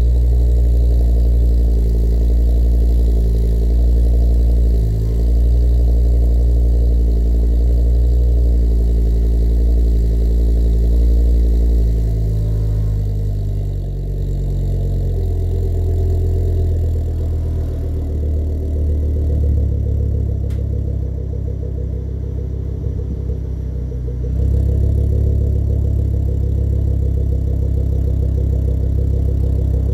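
Ford Focus RS's turbocharged 2.5-litre five-cylinder engine idling through a Mongoose System 500 exhaust after a cold start. The raised cold idle drops lower about twelve seconds in, and the exhaust note grows louder and deeper again late on.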